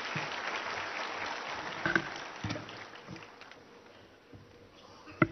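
Audience applauding at the end of a speech, the applause dying away over about three seconds into a few scattered claps.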